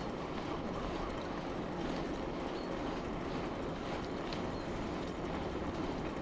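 Bicycle rolling along a road: a steady rumble of the tyres with a few small clicks and rattles from the bike.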